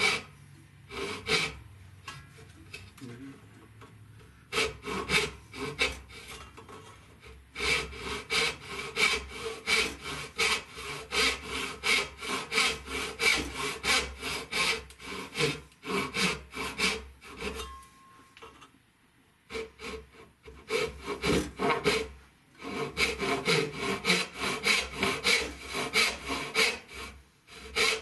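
Dovetail backsaw cutting tails by hand in a walnut board, in runs of quick back-and-forth strokes broken by a few short pauses.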